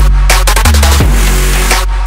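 Electronic dance music with a heavy, sustained bass line and sharp drum hits.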